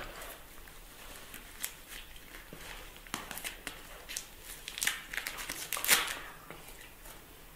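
Crinkling rustles and scattered light clicks as a puppy and a diapered baby monkey move about on a cushioned pet bed around a plastic milk bottle, busiest and loudest in the middle seconds.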